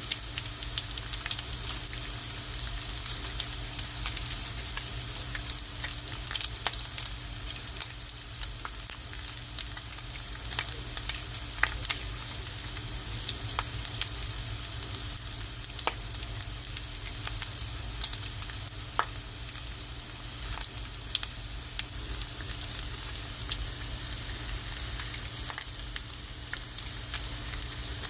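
Bacon sizzling as it fries in a pan: a steady hiss with frequent small crackles and pops throughout.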